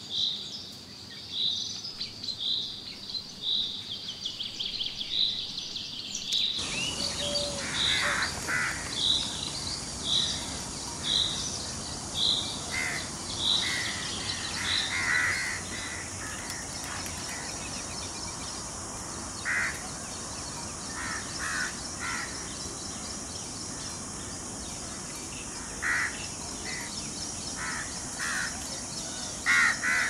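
Quail chicks peeping, one high peep repeated about every second. About six seconds in, a steady high outdoor hiss begins, and other birds give short calls at irregular intervals while the peeping fades out.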